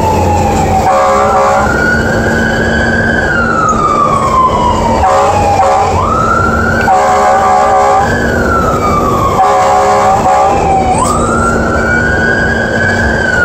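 Fire truck siren wailing, heard from inside the cab: the pitch rises quickly and then falls slowly, about once every five seconds. Short bursts of a horn sound four times between the wails.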